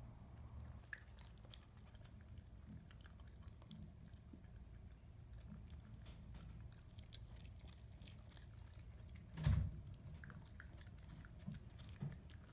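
Black Shiba Inu puppy eating food from its bowl and off the floor: soft, scattered clicks of chewing. One louder thump about three-quarters of the way through.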